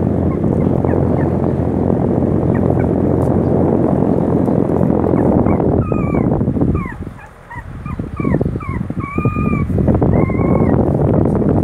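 Newborn puppies squeaking and whimpering in many short, thin whines, some bending up or down in pitch, most of them in the second half. Underneath is a loud, even rushing noise that drops away briefly about seven seconds in.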